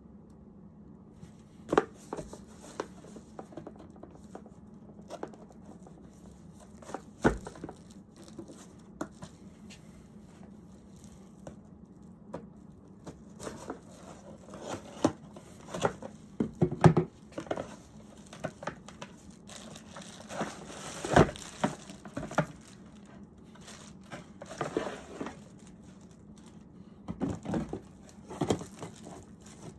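Product packaging being handled and opened by hand: irregular crinkling and tearing with scattered sharp knocks, busiest in the middle of the stretch.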